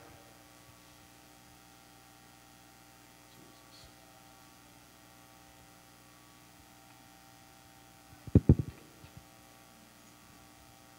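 Faint steady electrical hum, with a brief cluster of loud knocks about eight seconds in.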